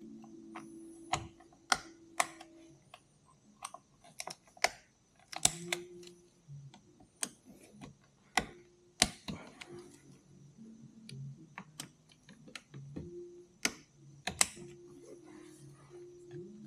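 Scattered sharp metal clicks and taps, single and irregular, about a second apart: a torque wrench and hand tools working the primary cover bolts as they are tightened to about 105 inch-pounds.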